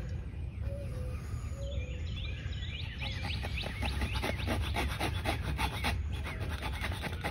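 A knife scraping and cutting into a tulip poplar fireboard, a quick run of short strokes from about three to six seconds in, as a new notch and divot are worked for a hand drill. Birds chirp over a steady low outdoor rumble.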